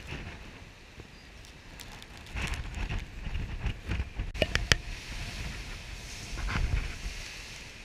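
Storm wind buffeting the microphone in gusts, with crackling noise and a few sharp clicks about halfway through.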